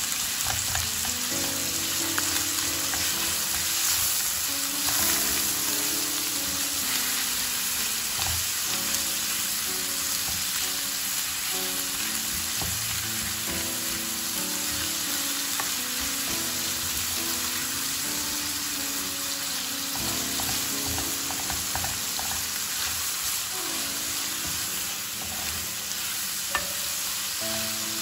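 Ground beef and diced onion sizzling in a nonstick frying pan, stirred and turned with a wooden spatula that now and then scrapes and taps the pan.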